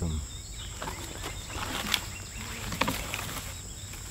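Steady, high-pitched chirring of insects, with a few sharp crackles and rustles over it, the loudest about two and three seconds in.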